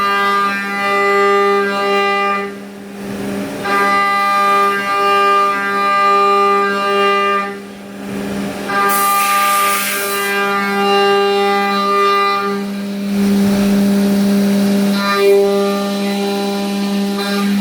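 CNC milling machine (2013 Haas VF-2SS) with a 1-inch two-flute Walter cutter spinning at 12,000 RPM and cutting aluminium at high feed, giving a loud, steady, high-pitched singing tone with many overtones. The tone drops away briefly about three seconds in and again about eight seconds in as the cutter leaves the cut, while a lower hum carries on. A short burst of hiss comes about nine seconds in.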